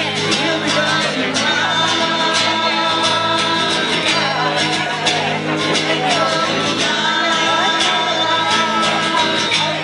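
A live band playing a song, with guitar and singing, loud and continuous.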